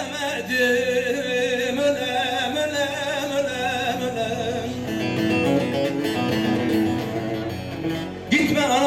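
Live Turkish folk music: a band led by bağlama (long-necked saz) plays while a male singer holds long wavering notes, and the music swells louder near the end.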